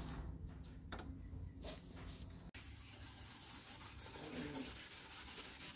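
Faint hand sanding of a rusty steel crossmember: abrasive rubbing on metal in back-and-forth strokes, over a low hum.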